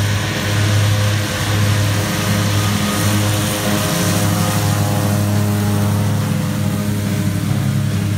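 Fendt tractor's diesel engine running steadily under load while Claas disc mowers cut standing grass. A steady low drone with an even hiss of cutting over it.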